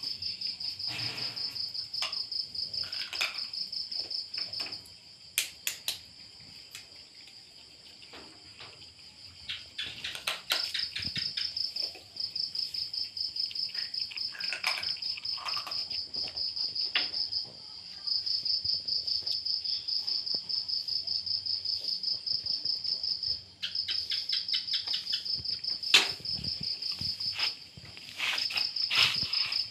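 A cricket trilling at a high pitch in long, evenly pulsed runs broken by short pauses, with scattered clicks and smacks from a dog eating off a plate.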